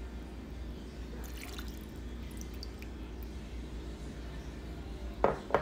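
Water poured from a small glass bowl into a ceramic bowl, a faint trickle and drips. Two short sharp knocks come near the end.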